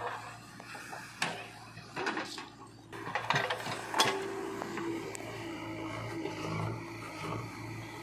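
JCB 3DX backhoe loader digging with its rear bucket: the diesel engine runs steadily under the work, with several sharp metallic knocks and clanks as the bucket bites and scrapes into the soil in the first half, then a steadier engine note as the dig goes on.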